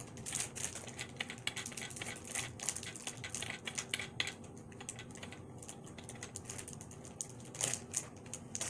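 Small plastic parts of a ring-light tripod clicking and rattling in quick, irregular ticks as an attachment is handled and fitted on.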